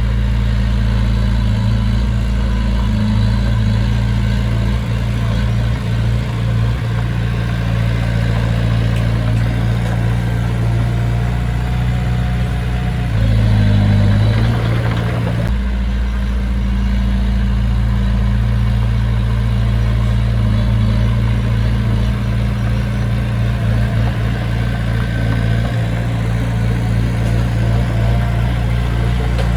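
Heavy construction machine's diesel engine running steadily at low revs. It swells briefly about halfway through, then settles back.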